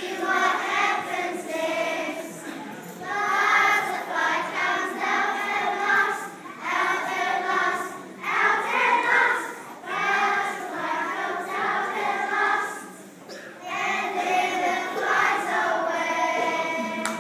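A class of eight-year-old children singing together as a choir, in phrases with short breaks between them.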